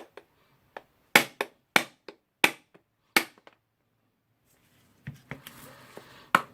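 Sharp taps and clicks of hard parts being knocked and handled while taking apart a rotary hammer drill: four loud strikes about two-thirds of a second apart, with lighter clicks between, then a stretch of light rattling near the end.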